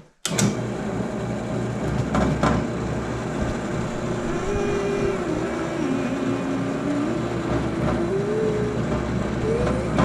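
Electric power saw running and cutting wood, starting suddenly and holding steady, with a whine that dips and rises in pitch as the blade works through the board.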